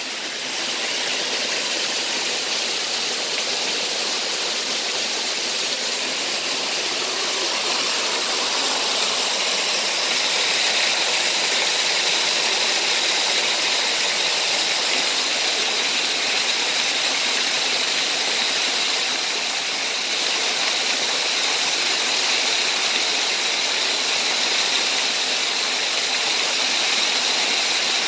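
Steady rushing of a creek and small waterfall, with the high whine of an RC rock crawler's electric motor and gears as it drives over wet rock. The whine comes up about ten seconds in.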